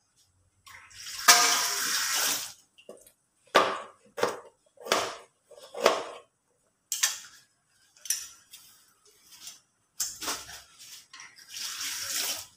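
Kitchen knife slicing fresh ginger on a plastic cutting board: a run of separate cutting strokes, with longer scraping sounds about a second in and near the end.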